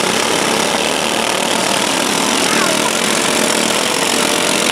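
Several riding lawn mower engines running hard together as the mowers push and ram each other, a steady, dense engine noise.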